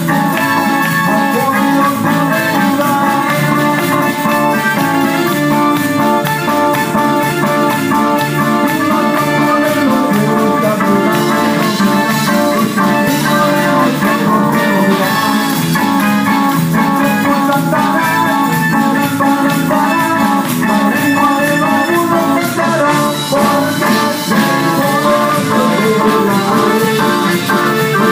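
Live church band playing a worship chorus on electric guitar, keyboard and drum kit, loud and continuous.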